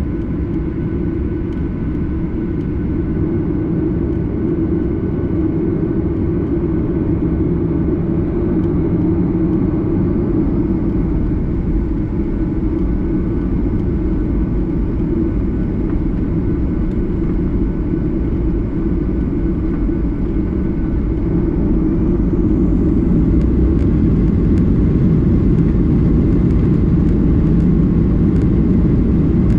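Boeing 737-800 cabin noise: the CFM56 engines running with a steady low rumble and faint steady tones. About twenty seconds in a high whine rises and the noise grows a little louder as engine thrust increases.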